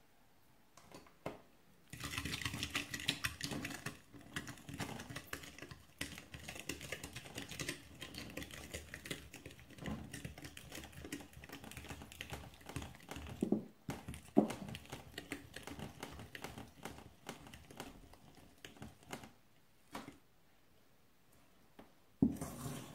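Metal fork and spoon stirring in a glass bowl, a quick run of clicking taps and scrapes against the glass as flour is worked into a milk-and-yeast mixture to make dough. The stirring starts about two seconds in, with a few louder knocks around the middle.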